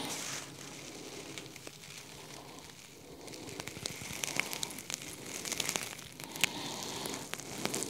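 Hands working on the taped glass panes of a home-built aquarium, pressing the corners square: scattered light clicks and taps of skin and fingers on glass, with a faint crackle of handling.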